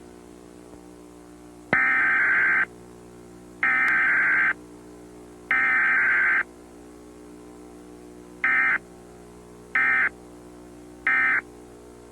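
Emergency Alert System SAME data tones from a broadcast EAS test: three buzzy, warbling digital header bursts of about a second each, then three short end-of-message bursts. A steady low hum runs underneath.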